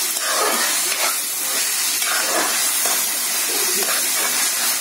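Cabbage, carrot and spring onion in sauce sizzling with a steady hiss in a wok over high heat, while a spatula stirs and tosses them unevenly.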